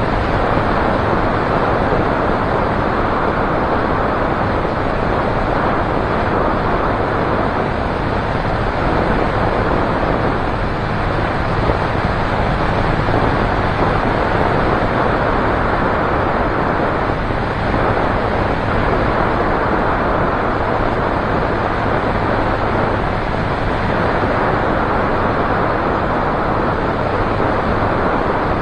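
Light aircraft's propeller engine running steadily in level flight, a constant low drone under heavy wind rush on the microphone.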